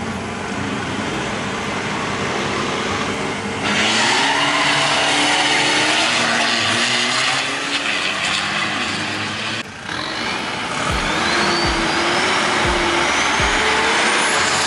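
Diesel drag-racing vehicles running hard down a drag strip, the engine sound getting louder about three and a half seconds in. After a sudden break near ten seconds, another diesel engine runs with a whistle rising steadily in pitch.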